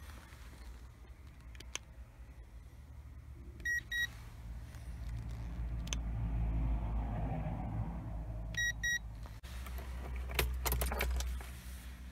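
A handheld infrared thermometer gives a quick double beep twice, about four seconds apart. Near the end, car keys jangle and click, typical of a key going into the ignition before a cold start.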